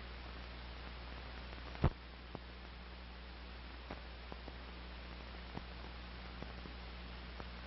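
Steady hiss and low mains hum with scattered faint clicks and one louder pop about two seconds in: the blank soundtrack of an old film, with only noise and dust crackle on it.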